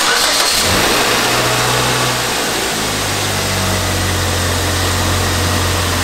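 Kia Lotze's four-cylinder DOHC engine running under the open hood, with a steady loud hiss over it. Its low hum drops to a lower, steady pitch about two and a half seconds in, as the idle settles.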